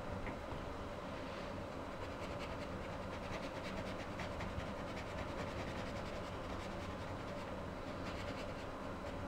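Fine paintbrush working oil paint on a stretched canvas: faint, irregular scratching strokes over a steady low hum.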